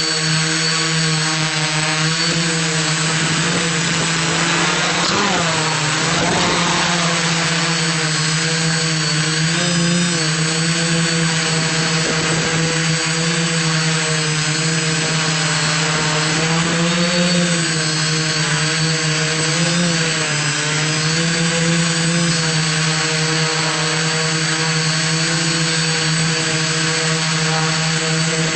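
iDEAFLY IFLY-4S quadcopter's motors and propellers humming steadily in flight, the pitch rising and dipping a little now and then.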